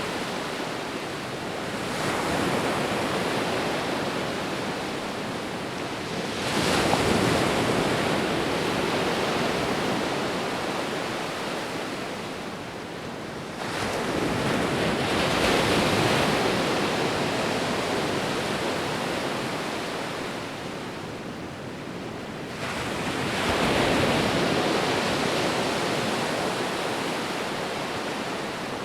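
Ocean waves breaking on a shore in slow repeating surges. Each wave comes in as a sudden rush of surf, then hisses away over several seconds, roughly every seven to nine seconds.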